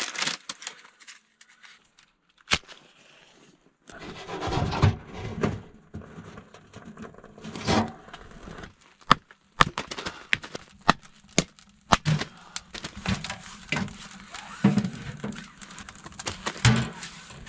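Kindling being fed into and lit in a small wood stove: dry twigs rustling and snapping as the fire catches, with irregular sharp clicks and knocks.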